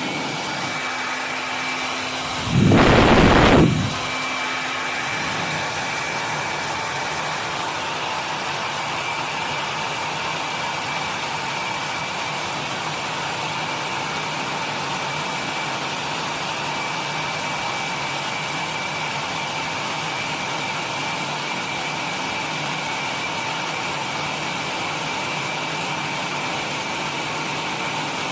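llano hair dryer (1500 W motor) running steadily: a loud, even rush of air with a faint high whine. About three seconds in there is a much louder rush lasting about a second.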